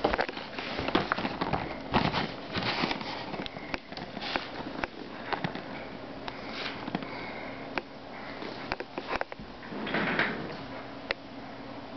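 Plastic toy packaging being handled and pulled apart by hand: an irregular run of crinkling rustles and sharp clicks.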